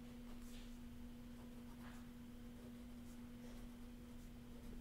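A faint, steady low hum on one pitch, with a few soft scratches of an ink pen drawing on paper.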